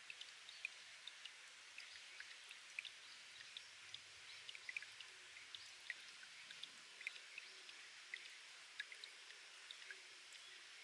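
Spring water trickling and dripping off rock: a faint, steady watery hiss with many quick, irregular drip plinks.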